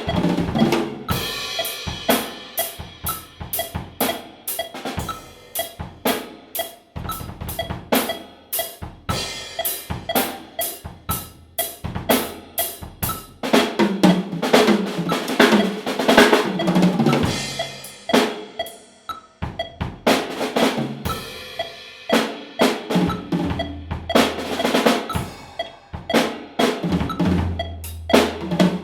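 Acoustic drum kit played solo: snare, bass drum and cymbals in fast, irregular patterns, with dense rolls and fills and a brief sparser passage in the middle.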